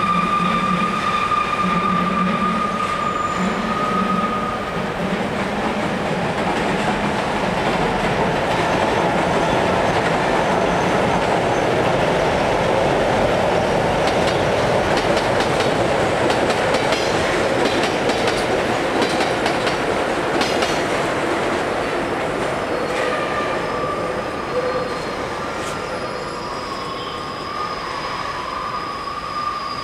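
A Paris Metro MF 67 train running across a steel viaduct: a rolling rumble that swells to its loudest around the middle and eases off toward the end. A steady high-pitched squeal is heard in the first few seconds and again near the end.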